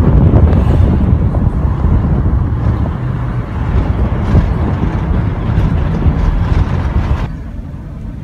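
Rumbling wind and road noise of a moving car, heard from inside, loud and gusty, dropping sharply to a quieter hum about seven seconds in.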